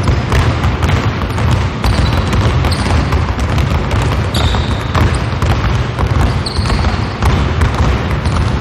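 Basketballs being dribbled on a hardwood court by several players at once, each working two balls: a dense, continuous patter of overlapping bounces, with a few short high squeaks.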